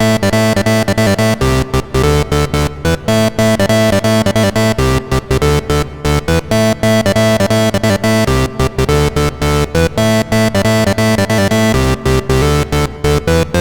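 Ad-vantage 03m monophonic semi-modular analog synthesizer playing a fast sequence of short, chopped notes with brief gaps between them.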